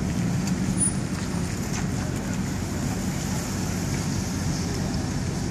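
Street traffic noise: car engines idling and moving, a steady low rumble.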